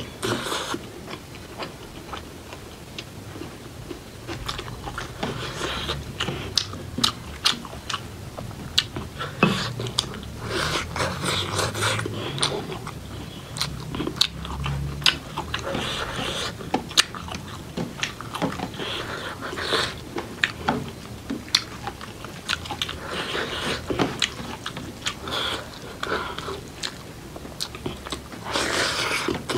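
A person chewing and biting food close up, mouth sounds throughout, with many sharp crunchy clicks scattered irregularly.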